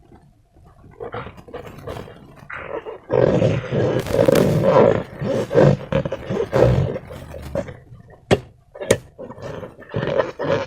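Slime and rubber balloons being squeezed and worked by hand: an irregular run of wet, rubbery noises, loudest in the middle, with two sharp clicks near the end.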